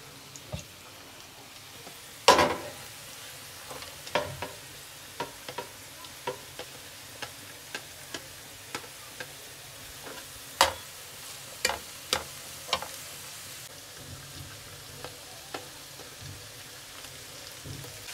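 Chopped vegetables sizzling in oil in a frying pan, with a metal slotted spatula stirring and knocking against the pan at irregular moments; the loudest knock comes about two seconds in, and several more cluster about ten to thirteen seconds in.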